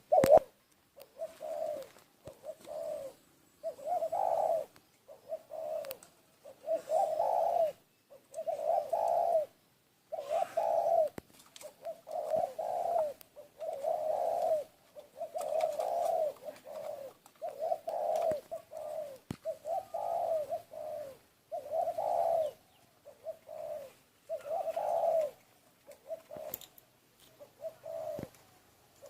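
A dove cooing over and over, in short pitched coos about one to two seconds apart.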